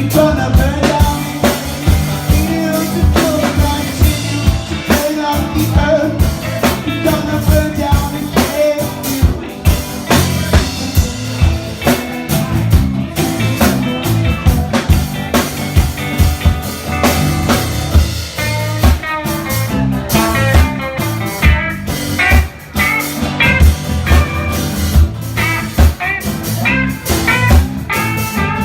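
A live band playing an instrumental passage, with a drum kit keeping a steady beat under an electric guitar line.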